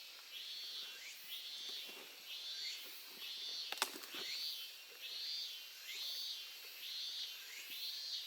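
Stream water running steadily, with a high, hooked call from a creature repeating about every three-quarters of a second over it. A single sharp click comes about four seconds in.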